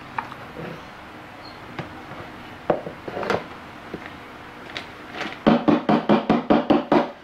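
Plastic containers and utensils being handled on a kitchen counter: scattered knocks, then a quick, even run of about ten louder knocks lasting about a second and a half near the end.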